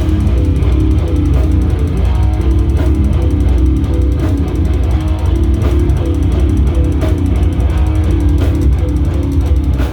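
Hardcore band playing live: distorted guitar riff over bass and drum kit, loud and dense, stopping abruptly right at the end.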